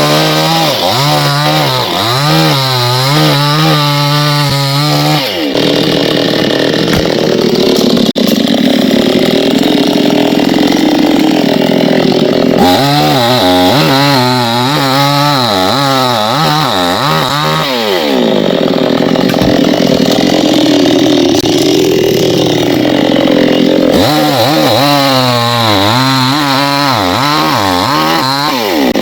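Two-stroke chainsaw running hard while cutting into a coconut palm trunk. It revs up three times for about five seconds each, its pitch wavering under load, and drops to a lower steady run in between.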